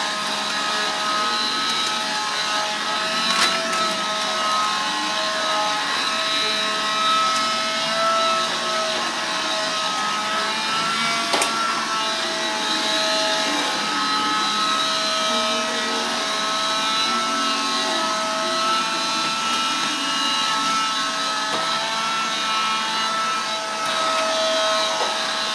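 Vacuum cleaner running steadily, its motor giving a constant whine over a rushing noise, with a sharp click twice.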